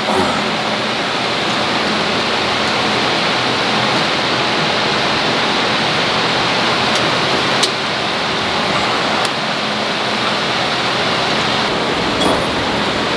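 Steady loud rushing air noise with a faint low hum, typical of a large shop fan running, broken by a few light clicks of metal parts, the sharpest about seven and a half seconds in.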